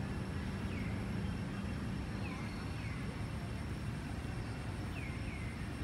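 Outdoor ambience: a steady low rumble, with a few short, high, falling chirps. One chirp comes about a second in, then a pair midway and another pair near the end.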